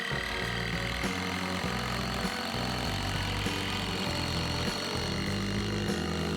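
Background music with a bass line that moves in steps under sustained higher tones.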